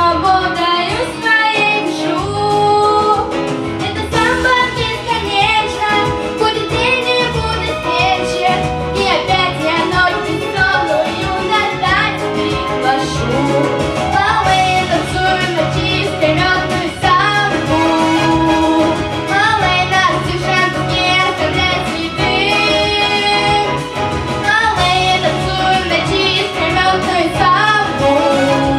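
Violin playing a lively samba melody with gliding, wavering notes over a musical accompaniment with a bass line.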